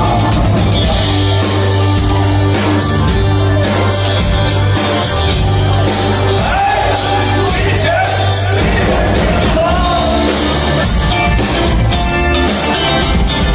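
A band playing a song: a lead voice singing over a steady bass line and a regular drum beat.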